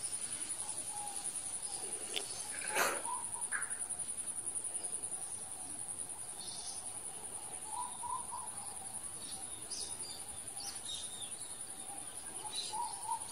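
Insects calling in a steady, high-pitched, evenly pulsing buzz, with a few short chirps scattered through and a single knock about three seconds in.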